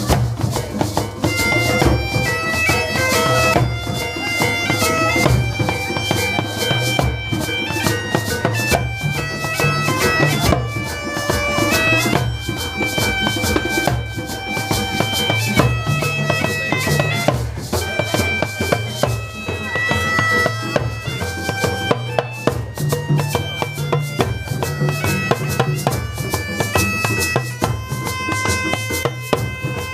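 Scottish bagpipe playing a melody of held notes over its steady drone, with drums beating along.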